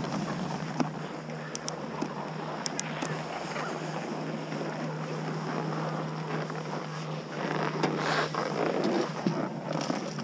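Wind buffeting the camera microphone over a steady low hum, with a few light clicks about two seconds in and a louder rush of noise near the end.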